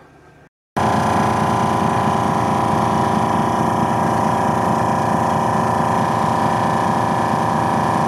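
Small air compressor running steadily at one pitch while inflating an off-road tyre through its valve. It starts abruptly just under a second in.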